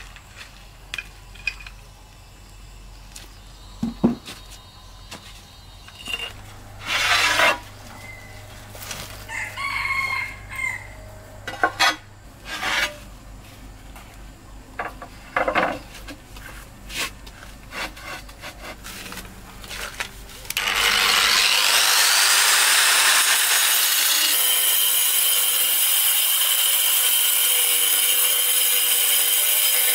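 Scattered knocks and clicks of ceramic floor tiles being handled and set down, with a rooster crowing in the background. About two-thirds of the way in, an angle grinder with a cutting disc spins up with a rising whine and then cuts steadily through a ceramic tile, loud and continuous.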